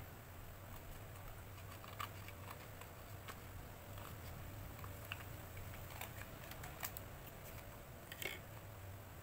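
Faint, scattered light clicks and taps of small objects being handled at a desk, over a low steady hum.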